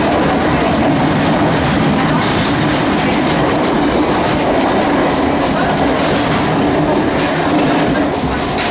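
London Underground Metropolitan line A Stock train running, heard from on board: a steady, loud rumble of wheels on rail with occasional faint clicks.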